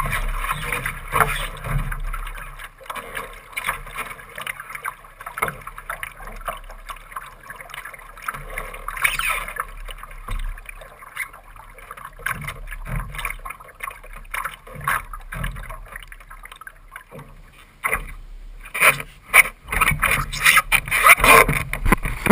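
Lake water splashing and gurgling against the bow of a Laser sailing dinghy under way, heard close from the deck, with many small slaps and clicks. In the last few seconds louder, irregular bursts come in.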